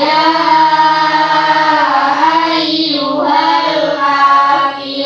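A large group of children singing in unison, holding long notes.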